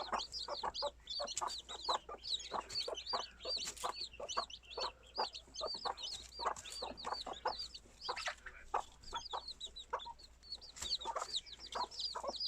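A brood of young chicks peeping continuously, many rapid short high peeps that rise and fall, over a scatter of lower short calls.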